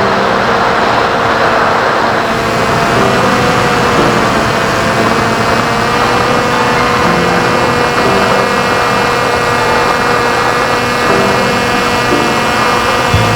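Brushless electric motor and carbon propeller of an RC airplane running steadily in flight, heard from an onboard camera: a continuous rush of prop and wind noise with a steady high whine.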